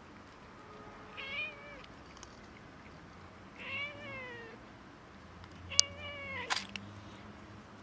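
Domestic cat meowing three times over food, drawn-out calls of about half a second to a second each, with the pitch arching and falling. Two sharp clicks come during the third call.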